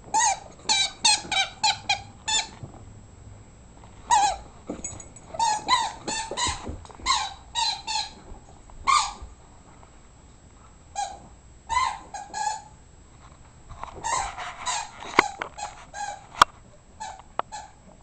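Rubber chicken toy squeaking again and again as a dog chews it: quick runs of short squeaks in several bursts, with a few sharp clicks near the end.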